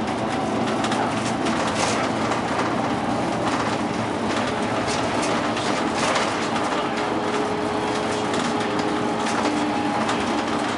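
Bus driving along a road, heard from the front of the cabin: a steady engine and road noise with a faint whine and frequent rattles and clicks from the bodywork and fittings.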